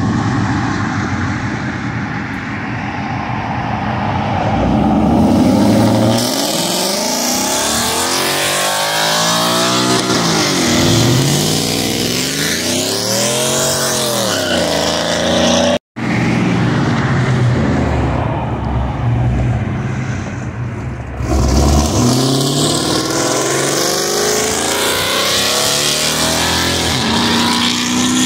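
Car engines accelerating hard on the way out: a car revs and pulls past, its engine note climbing and then falling away. After an abrupt cut about halfway, another car's engine revs and pulls away, loudest just past the two-thirds mark.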